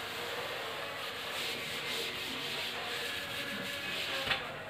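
A chalkboard duster wiping chalk off a chalkboard, a continuous scrubbing rub against the board's surface.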